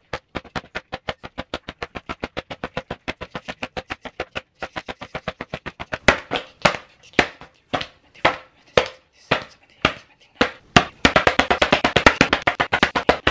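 A hand repeatedly slapping a sheet of drawing paper: sharp slaps at about five or six a second, then from about six seconds in louder, more spaced slaps, with a dense flurry of them near the end.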